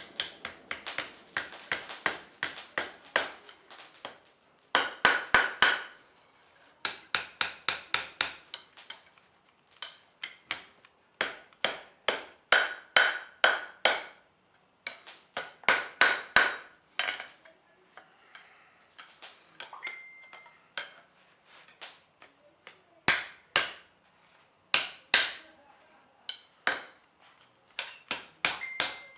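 Hand hammer striking hot steel on an anvil in quick runs of blows, several a second, with short pauses between runs, bending a 90-degree fold into the hook's bar. A high ring from the anvil hangs on after some of the blows.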